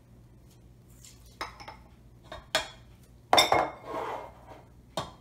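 Small glass prep bowls make about half a dozen sharp clinks and knocks against a stainless steel mixing bowl and the countertop as milk is poured in and the bowls are set down. The loudest clink comes about three and a half seconds in and rings briefly.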